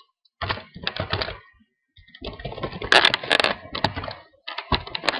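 Computer keyboard being typed on, keystrokes clattering in short runs, busiest in a quick run through the middle.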